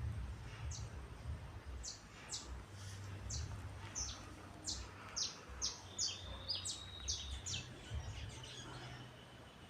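Faint bird chirps: a run of short, high, downward-swept chirps, roughly two a second, over a low background rumble.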